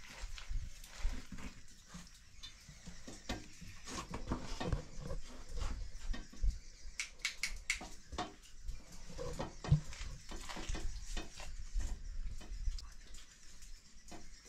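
Hands and boots on a steel cave ladder and metal pipe handrail: irregular clinks, knocks and scrapes as a climber works his way down, with a tighter run of sharp clinks about halfway through.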